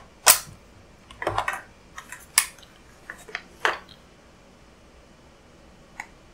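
Sharp plastic clicks and knocks as the battery door is snapped back onto the back of a Davis Vantage Pro2 weather station console and the console is handled, the loudest click just after the start, the rest bunched in the first four seconds; one faint click near the end.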